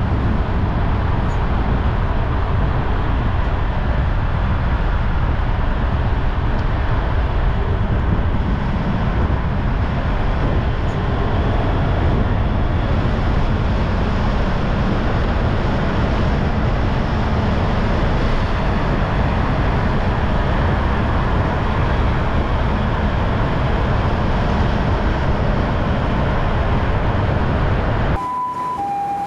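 Steady road noise of vehicles driving, heaviest at the low end. Near the end it cuts off abruptly to a two-tone emergency siren alternating between a high and a low note.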